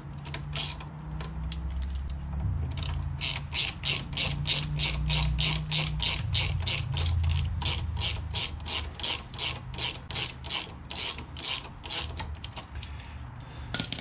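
Hand socket ratchet clicking steadily, about three clicks a second, as it runs the pad retaining bolt down to touch in a Honda VFR800's front brake caliper. One sharper click comes near the end.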